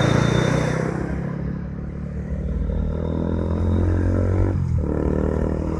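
Honda CB150R's single-cylinder engine running steadily while riding. The engine note dips briefly about four and a half seconds in.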